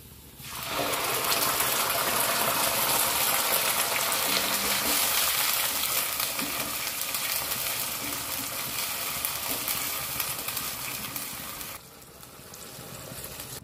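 Wet onion, cumin and coriander-stem paste hitting hot oil in a kadai and frying with a loud, steady sizzle that sets in about half a second in, stirred with a wooden spatula. Near the end the sizzle drops suddenly to a softer level.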